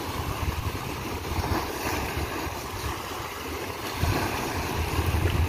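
Small waves washing and foaming over a rocky shoreline, with wind buffeting the microphone as a fluctuating low rumble.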